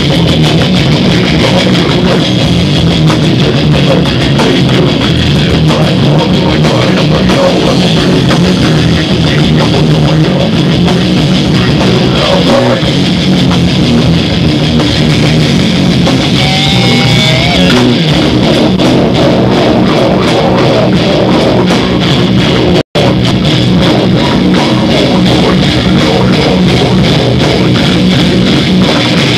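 A metal band playing live and loud: electric guitars over a fast drum kit. About three quarters of the way through, the sound cuts out for an instant.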